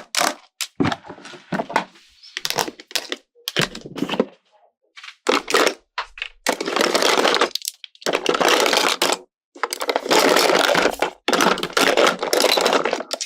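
Plastic toy packaging being handled and crinkled: a run of sharp clicks and taps, then, from about halfway through, four long stretches of dense crackling.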